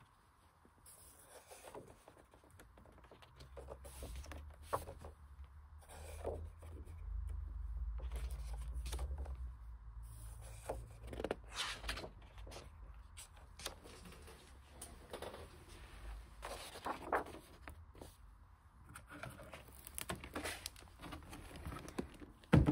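Paper pages of a large hardcover art book turned by hand: short rustles and swishes of heavy paper, then the book closed and turned over in the hands. A low rumble runs underneath for several seconds early on, and a sharp knock comes right at the end.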